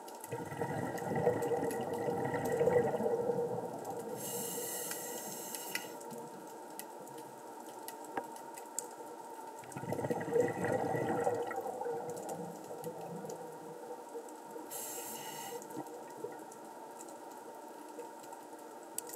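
A scuba diver breathing through a regulator underwater. Exhaled bubbles pour out twice, at the start and about halfway through, and a short hiss comes with each inhalation, about four seconds in and again about fifteen seconds in. Faint clicks sound throughout.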